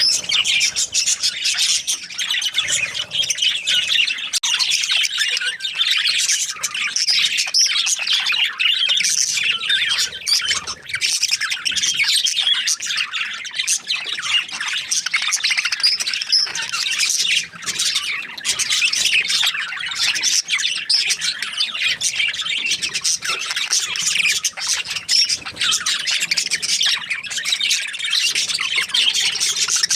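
A group of budgerigars (budgies) chattering, with dense overlapping high chirps and squawks that carry on without a break.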